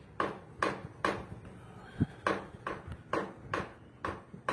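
Graphite pencil shading on drawing paper: an even run of short scratchy strokes, a little more than two a second, with a single sharp tap about two seconds in.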